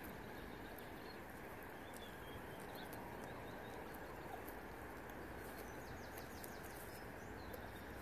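Steady low outdoor background noise with a few faint, short, high bird chirps and small clicks scattered through it.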